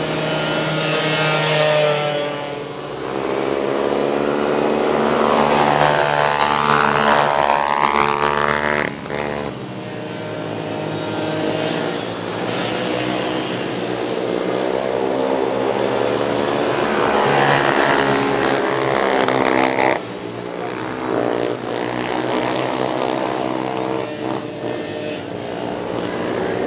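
Small racing ATV (quad bike) engines running and revving as several quads race past, the pitch rising and falling with the throttle. There is a long rising rev about a third of the way in, and the sound shifts abruptly twice.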